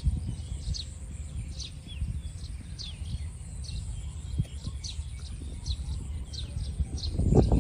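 A bird calling over and over with short, high chirps, over a low rumble. Near the end comes a loud rustling and crackling of tall grass and brush being pushed through.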